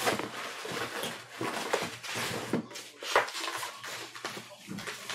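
Handling noise at a desk: rustling and soft knocks as paper and a pen are moved about on a desk mat.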